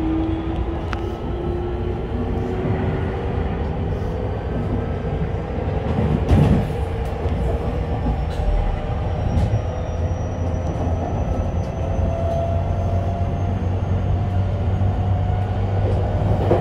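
JR West 225 series motor car's Hitachi IGBT VVVF inverter and traction motors whining, heard from inside the car. Several tones climb slowly in pitch as the train gathers speed, over a steady low hum and wheel-on-rail running noise. A short knock comes about six seconds in.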